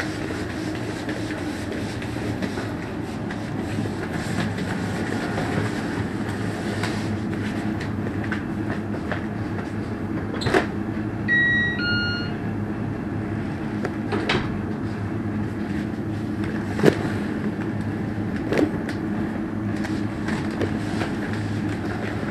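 Two-tone doorbell chime, a higher note then a lower one, about eleven seconds in. Under it runs a steady low rumble, with several sharp knocks scattered through.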